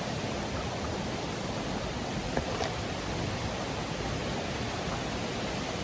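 Steady rushing of river water over falls, an even hiss, with a couple of faint ticks about two and a half seconds in.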